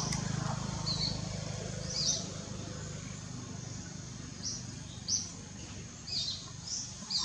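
Small birds chirping outdoors: short, high, downward-sliding notes repeated irregularly every second or so, over a low steady hum that weakens after the first few seconds.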